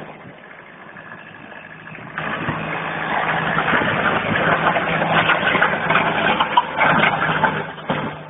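Rastrojero pickup's engine running at a steady pitch. From about two seconds in comes a loud, rough scraping of a tyre on a wooden pallet being dragged over the dirt behind the truck, easing off near the end.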